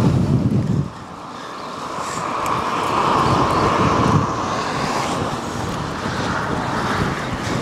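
Gusty wind buffeting the microphone, with a steady rushing noise that swells about two seconds in and then holds.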